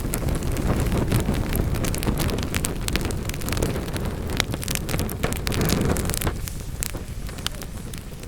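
Wood fire burning in a fireplace: a low, steady rumble of flames with frequent sharp crackles and pops of burning wood. The rumble eases a little near the end.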